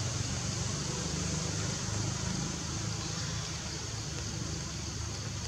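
Steady outdoor background noise: a low rumble with a continuous high-pitched hiss above it, and no distinct events.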